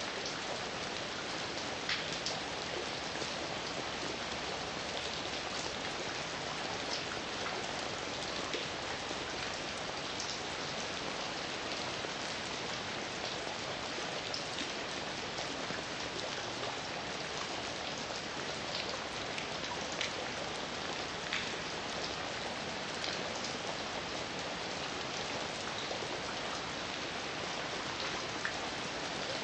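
Steady heavy rain falling, a continuous hiss with scattered individual drops ticking sharply on a surface.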